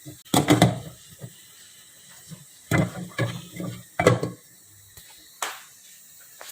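Kitchen handling sounds: a few separate knocks, clinks and scrapes of cookware being moved and set down, one of them a short falling scrape about five seconds in.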